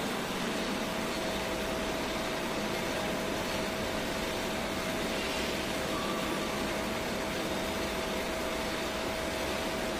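Steady mechanical hum and hiss of a running machine, with a faint steady whine that sets in about half a second in.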